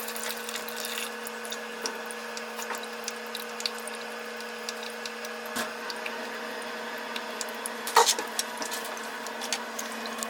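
Water draining from a tankless water heater's service valve, trickling and dripping with small crackling splashes over a steady hum as the drainage nears its end. A sharper splash or knock about eight seconds in.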